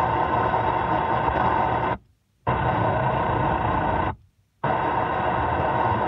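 Car AM radio tuning step by step through empty frequencies: loud static and noise from the receiver, in three stretches, each broken by a brief silence as the tuner mutes and moves to the next channel.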